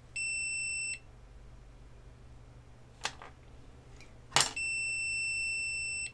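Digital multimeter's continuity beeper sounding twice, a short beep right at the start and a longer one near the end, with two sharp clicks between them. The meter is reading a short on both pins of the HomePod amplifier board's 60 V 5 A Schottky diode, the sign that the diode has failed shorted.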